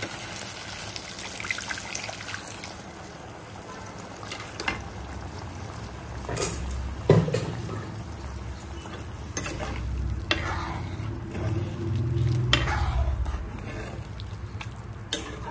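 Hot water poured into a kadai of frying tomatoes and potatoes, the oil sizzling, then a ladle stirring the curry with several scrapes and knocks against the pan.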